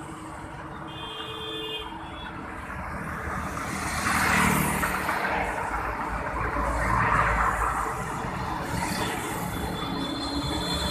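Road traffic going past on a busy highway: a steady rush of engines and tyres, with vehicles swelling past about four seconds and again about seven seconds in. Brief high tones come about a second in and again near the end.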